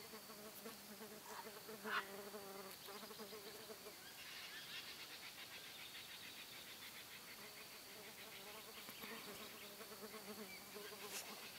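Faint insect sounds: a wavering buzz that comes and goes, over a steady high-pitched drone, with a rapid ticking trill in the middle.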